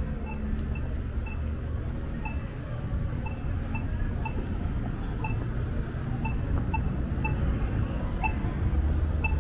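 Accessible pedestrian signal at a crosswalk giving its locator tone: short, even beeps repeating at a steady pace, over the low rumble of street traffic.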